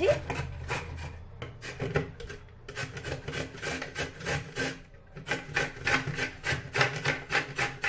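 Peeled raw papaya being grated by hand on a flat plastic grater: quick rasping strokes, about four a second, with brief pauses about two and a half and five seconds in.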